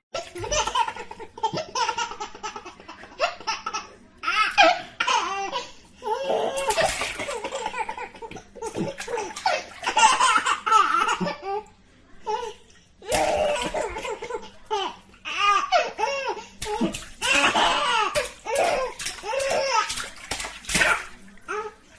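A baby laughing over and over, in bouts broken by short pauses.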